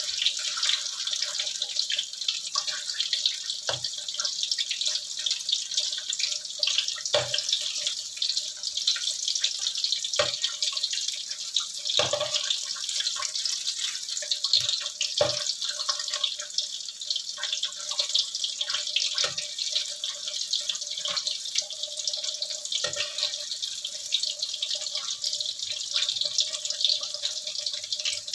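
Battered cempedak fritters frying in hot oil in a wok, with a steady crackling sizzle. The metal spatula knocks against the wok several times as the pieces are turned.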